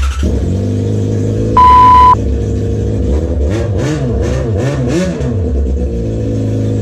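Yamaha FZ6 Fazer's 600 cc inline-four running loudly with its exhaust removed, open at the header/catalyst joint: a harsh racket at idle, with several quick throttle blips in the middle before settling back to idle. A loud one-tone beep cuts in about a second and a half in.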